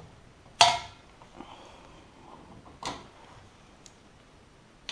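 Metal parts of a ceiling fan's mount being handled: one sharp clank that rings briefly about half a second in, a lighter knock near three seconds, and a few faint ticks.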